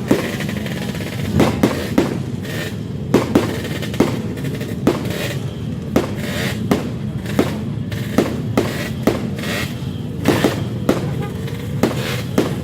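New Year fireworks bursting overhead: a rapid, irregular string of sharp bangs, one or two a second, each with a short echo, over a steady background din.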